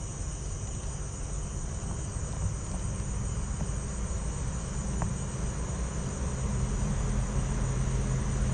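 A steady, high chorus of night crickets, with a low rumble underneath that grows a little louder toward the end.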